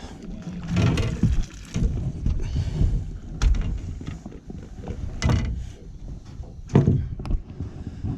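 Several knocks and thumps against a fishing boat, with rustling handling noise, as a caught catfish is handled aboard.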